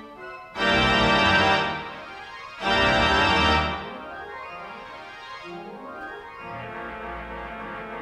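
Pipe organ played from a Möller roll player: two loud full chords of about a second each, the first about half a second in and the second near three seconds, then softer held notes with a few lower moving notes, settling into a quiet sustained chord.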